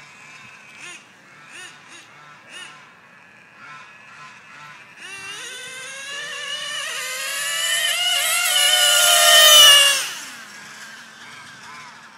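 Small nitro RC engine screaming at high revs as a Traxxas Jato races past, climbing in pitch and loudness for about five seconds, then dropping away quickly. Short honking calls sound faintly before it.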